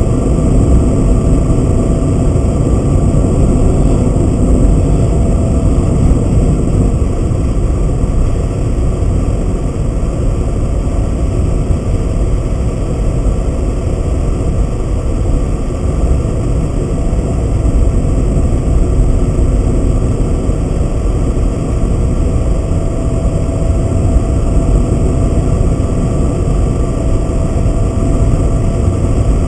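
Car driving at steady speed, heard from inside the cabin: a steady mix of engine and road noise.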